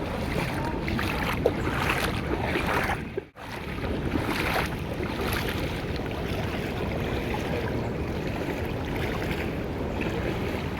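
Steady rushing of flowing water. It cuts out for an instant about three seconds in.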